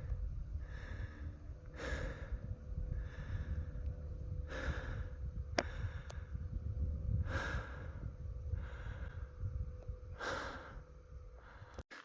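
Heavy breathing of a trail runner, with loud breaths recurring every second and a half to three seconds over a steady low rumble of footsteps and movement. A sharp click comes about five and a half seconds in, and the sound cuts out briefly near the end.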